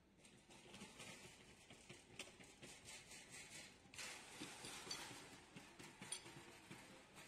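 Near silence: faint background hiss with scattered light clicks, a little louder from about four seconds in.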